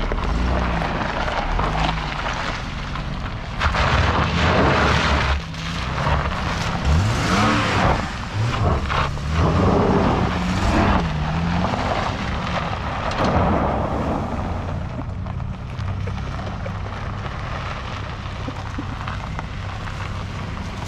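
Jeep Grand Cherokee Laredo's V6 revving up and falling back several times as the tyres spin and throw gravel, loudest between about 4 and 11 seconds in, then running more evenly. The driver suspects the traction control is holding the engine back.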